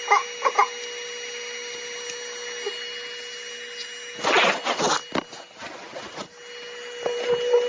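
Hoover Power Scrub Elite carpet cleaner running with a steady motor hum and whine. Short rough surges come and go over it, the loudest about four seconds in.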